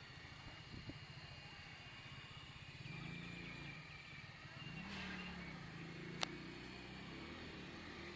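Esky Hunter RC helicopter in flight, its faint motor whine and rotor buzz swelling a little about three and five seconds in. A single sharp click about six seconds in.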